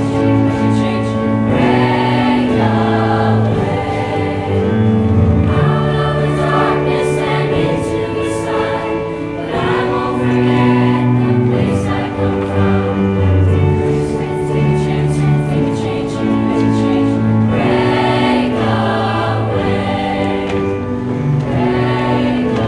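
Music: a choir singing long held chords.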